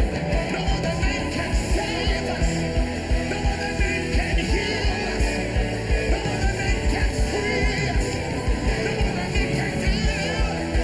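Live worship band music with a fast, steady drum beat and voices singing.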